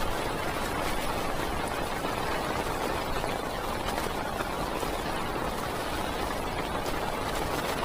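Heavy rain falling on a parked car, heard from inside the cabin: a steady hiss with faint scattered ticks of drops on the glass and roof.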